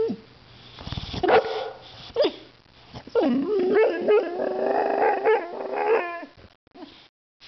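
A young boxer dog vocalising: two short barks about a second and two seconds in, then a long wavering growling howl lasting about three seconds, and a couple of short yips near the end.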